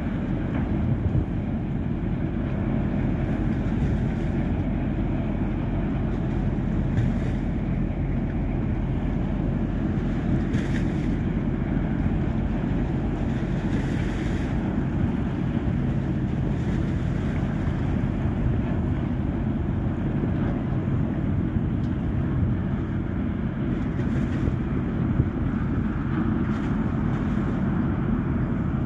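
Large passenger ferry's engines running, a steady low rumble with a constant hum.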